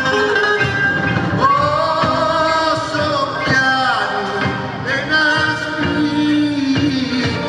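A man singing live into a microphone with a band backing him, holding long notes that bend in pitch.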